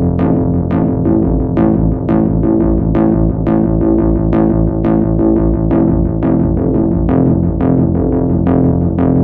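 Electronic music: a synthesizer playing fast repeated keyboard notes, with stronger accents about every half second.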